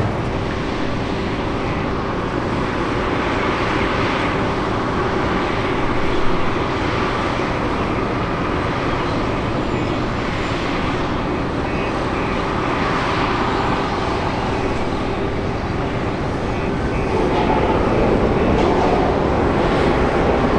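Jet airliner on its landing run, engine noise as a steady rush with a held hum, growing louder about seventeen seconds in.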